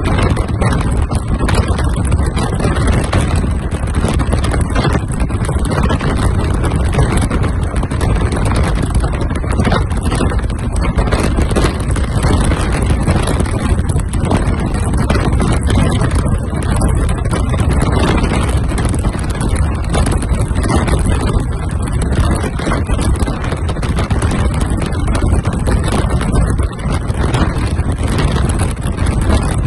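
Steady rush of road and wind noise from a car travelling at highway speed.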